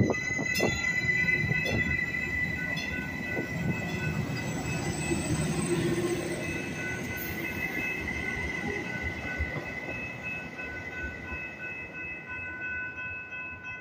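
Metrolink Arrow Stadler FLIRT diesel multiple unit pulling out past the platform, its engine and wheels on the rails fading as it moves away. A steady high-pitched tone sits over the rumble.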